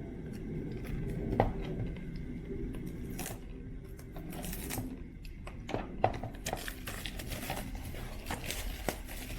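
Plastic shrink wrap being cut with scissors, then crinkled and torn off a sealed cardboard trading-card box, with scattered clicks and rustles of handling.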